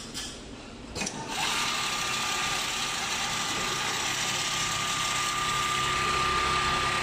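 Richpeace CNC pattern sewing machine starting up: a click about a second in, then a steady mechanical whirr with a constant high whine as it runs.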